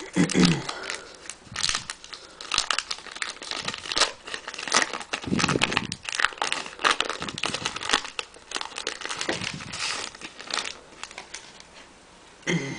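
Plastic wrapper of a pack of trading cards being torn open and crinkled by hand: irregular crackling and rustling that thins out near the end.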